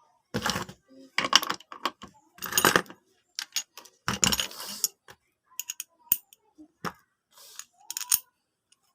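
Intermittent clinking and clattering of small hard objects being handled, in short bursts of about half a second with sharp clicks and quiet gaps between them.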